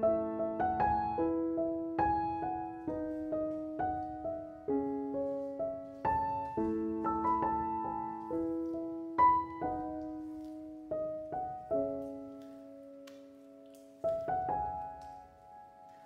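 Background music: solo piano playing notes and chords one after another, each ringing and dying away. It quietens about twelve seconds in, and a new phrase starts near the end.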